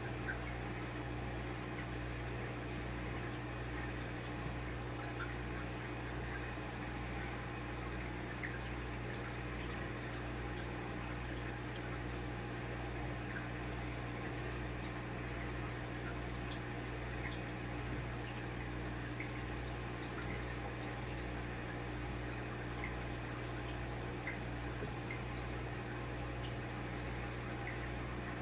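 Turtle aquarium's air bubbler and pump running: a steady low hum under a constant watery fizz, with scattered small pops of bubbles breaking at the surface.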